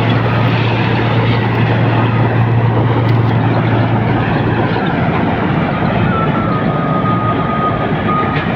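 John Deere 5050D tractor's diesel engine working under load while driving a PTO-powered Raja straw reaper through wheat stubble: a steady, loud mechanical rush of the engine, cutter, threshing drum and blower. The engine's low hum drops away about halfway through as the tractor moves past.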